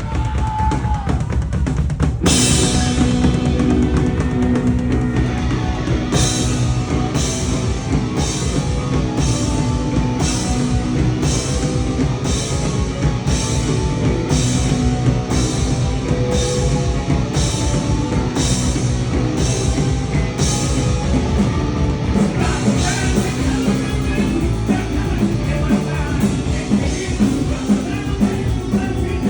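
Punk rock band playing live: drum kit, bass and distorted electric guitar. From about six seconds in, cymbal crashes land on a steady beat, and the playing grows busier near the end.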